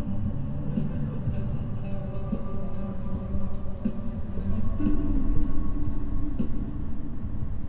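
Steady low rumble with a few sustained tones and scattered light clicks, the kind of sound a rail vehicle makes in motion.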